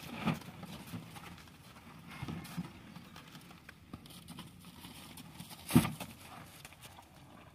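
Hereford cattle feeding at a metal feeder: a few short, scattered noises over a low background, the sharpest and loudest about six seconds in.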